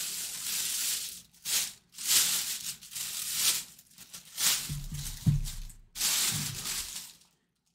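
Thin plastic bag rustling and crinkling in repeated bursts as a full-size football helmet is worked into it, with a few dull knocks about five seconds in.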